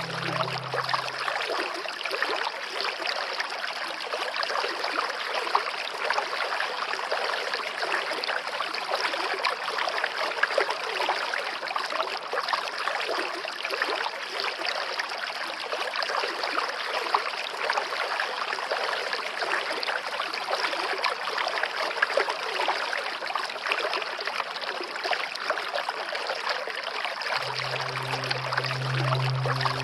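Waterfall rushing steadily, a continuous even wash of falling and splashing water. A low steady hum sits under it at the start, fades out a second or two in, and comes back near the end.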